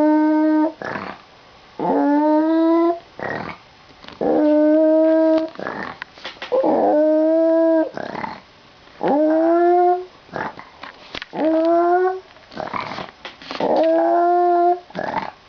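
A dog giving a string of howls, about seven in all, each about a second long, rising at the start then held steady, repeating about every two seconds. Short sharp sounds fall in the gaps between howls.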